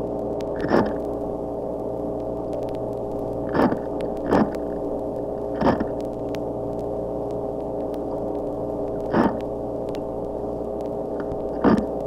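White grunt (Key West grunt) grunting, recorded underwater in an aquarium tank: six short grunts at uneven intervals over a steady background hum.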